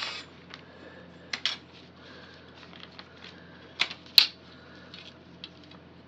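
A few light clicks and taps as a steel ruler and pen are set down and shifted on pattern paper over a hard tiled floor. The sharpest tap comes about four seconds in.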